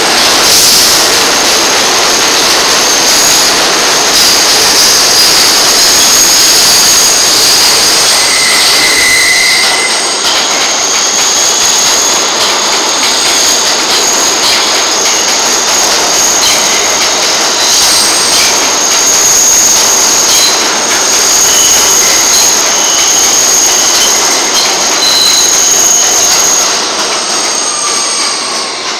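R160B subway train's steel wheels squealing on a curved track as the train runs into the station: very loud, piercing high-pitched screeches held over the rumble of the passing cars. The squeal eases off near the end.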